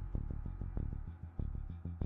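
Background music with a heavy bass line and a steady, driving beat.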